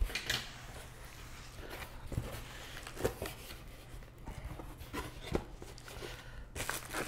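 Cardboard shipping box being opened by hand: the flaps are pulled open and folded back, with light rustling of the cardboard and a few soft knocks.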